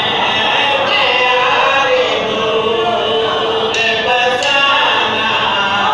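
Men's voices chanting a qasida in a sustained, melodic recitation, several voices together.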